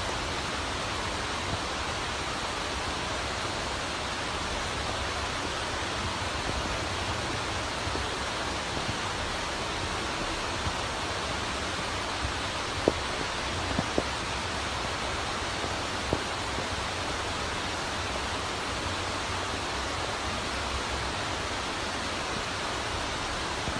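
Steady, even hiss with no change in level, broken by a few brief clicks about 13, 14 and 16 seconds in.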